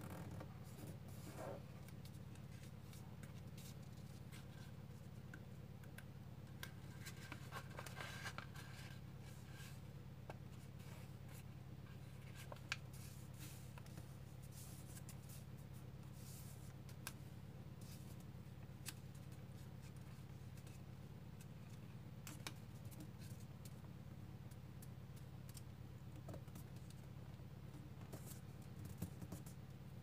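Origami paper being folded and creased by hand: soft rustles and short scratchy crease sounds scattered throughout, busiest about eight seconds in, over a faint steady low hum.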